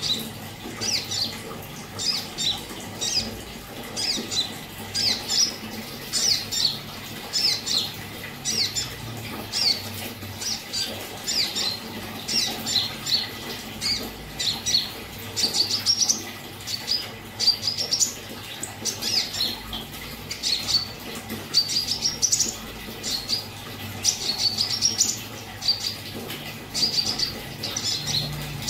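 A konin (kolibri ninja, a sunbird) singing in full voice, the steady 'gacor' song used to set other birds singing: a rapid, unbroken run of short, high, sharp chirps and trills.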